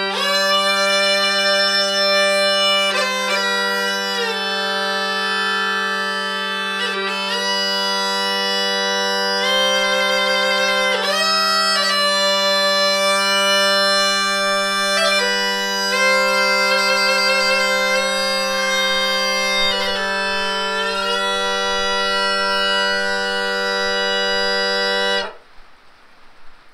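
Bagpipe with a single drone playing a folk tune. The chanter's melody moves from note to note over one steady low drone note, and the playing stops suddenly near the end.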